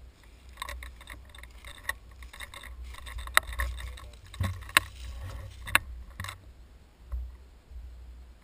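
Rustling and crackling of dry leaves and brush as a player moves quickly through forest undergrowth with an airsoft rifle, with a few sharp knocks in the middle. The noise stops about six seconds in.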